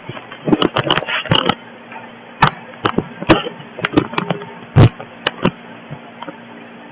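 A series of irregular sharp clicks and knocks, the loudest a low thump about five seconds in, over a faint steady hum.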